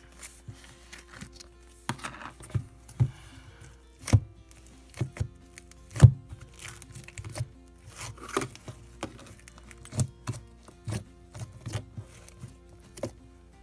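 Slime being squished and poked by hand, making irregular sticky clicks and pops.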